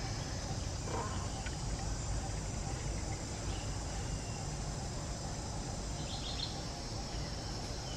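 Steady chorus of insects, a high even buzz, over a low steady rumble, with a few faint short chirps about a second in and again around six seconds.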